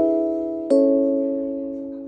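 Background music of gentle struck notes, with a new chord about two-thirds of a second in, each slowly fading away.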